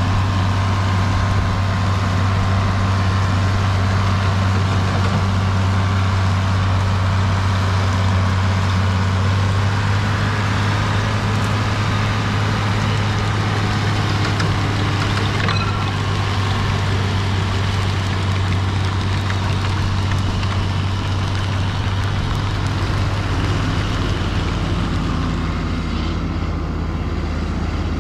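John Deere 4640's turbocharged 7.6-litre six-cylinder diesel running steadily under load, pulling and driving a manure spreader as it spreads. The engine note shifts slightly near the end.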